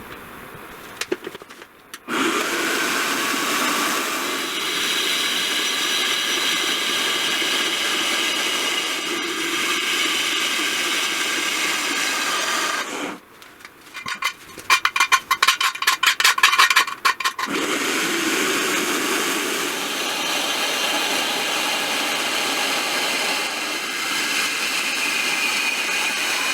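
Power tool running steadily for about ten seconds, working on metal. It then stops, gives a few seconds of rapid rattling pulses, and runs steadily again for about ten more seconds.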